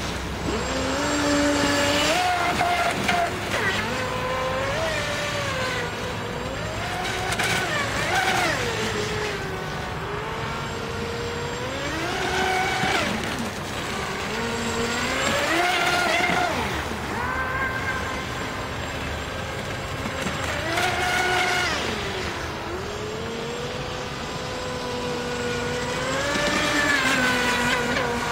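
Brushless outrunner electric motor of a radio-controlled scale Sea-Doo RXP jet ski whining, its pitch rising and falling again and again as the throttle is opened and eased through about six passes, over a hiss of water.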